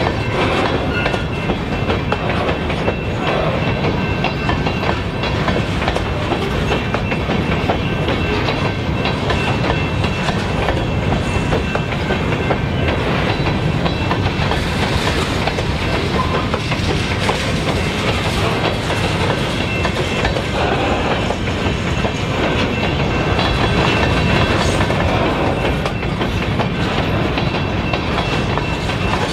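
Covered hopper cars of a unit grain train rolling past on jointed rail: a steady rumble with the clickety-clack of wheels crossing the rail joints.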